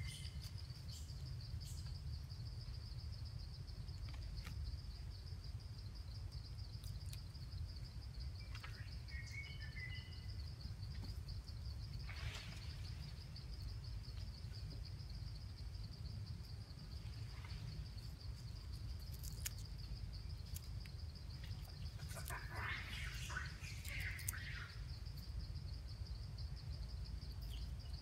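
Steady high, fast-pulsing insect drone over a low rumble, with a few short chirps about nine seconds in and a busier run of chirps a little past twenty seconds.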